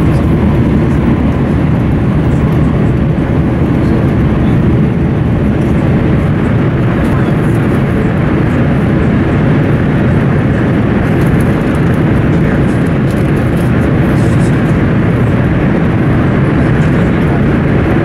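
Class 395 'Javelin' electric train running fast through a tunnel, heard inside the passenger coach: a loud, steady, deep rumble and rush of wheel and air noise with no breaks.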